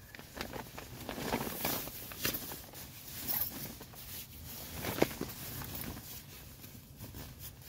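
Nylon sleeping bag and tent fabric rustling and scraping irregularly as a person shifts and settles in, with a sharp tick about five seconds in.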